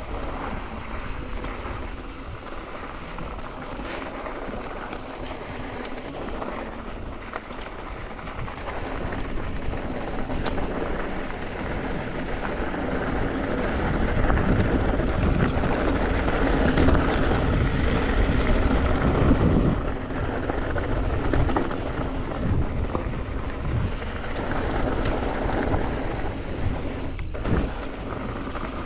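Wind buffeting the microphone and a Yeti SB165 mountain bike's tyres rolling over loose rocky trail at descending speed, with scattered clicks and rattles from the bike. The wind rumble gets louder about halfway through, then eases about two-thirds in.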